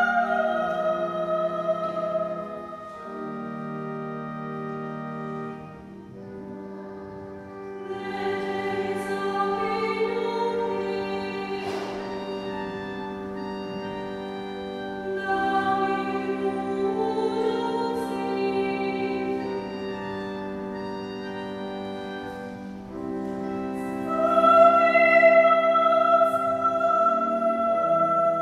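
Church organ holding slow sustained chords under a female solo voice singing a sacred hymn with wide vibrato. A sung phrase ends just after the start, the organ plays alone for about five seconds, and then the voice comes back in.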